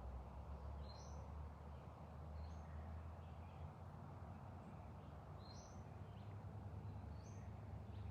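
A small bird chirping a few times, short high notes that step up in pitch, over a steady low rumble.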